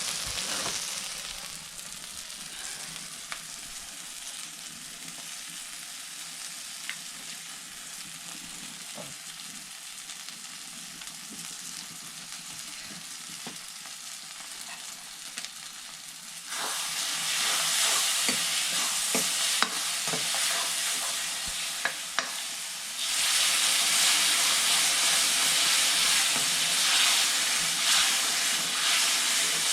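Food sizzling in a cooking pot while it is stirred, with scattered light knocks of the stirring utensil against the pot. The sizzle grows much louder a little past halfway, drops briefly, then comes back loud.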